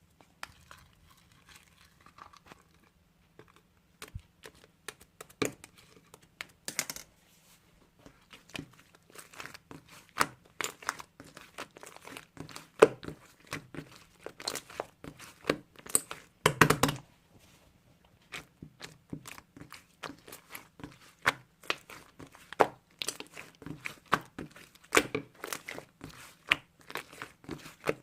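Irregular crinkling and crackling, as of something being crumpled and handled, with scattered louder crackles.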